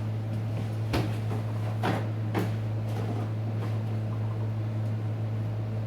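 A few sharp clicks and knocks of small objects being handled, the loudest about a second in and the rest over the next two seconds, over a steady low hum.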